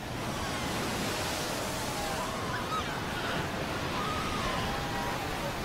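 Surf of the incoming tide breaking and washing over a crowd of Cape fur seal pups, a steady rush of water, with faint wavering calls from the pups above it.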